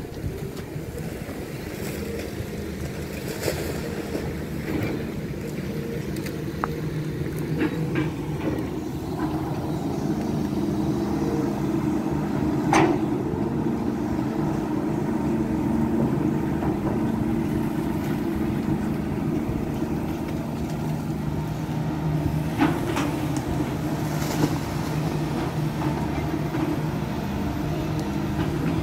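Diesel engine of a Volvo long-reach excavator running with a steady drone while it dredges mud from a canal, growing a little louder about a third of the way in. A few sharp metallic knocks stand out, the loudest about halfway through.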